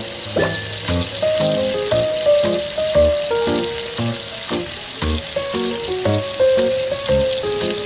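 Pork pieces sizzling in a hot wok, under background music with held melody notes and a soft beat about once a second.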